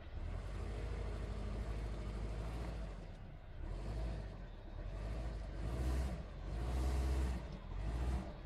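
Off-road vehicle driving slowly along a muddy dirt track, its engine and mud-caked tyres making a steady low rumble that swells louder several times, most strongly in the second half.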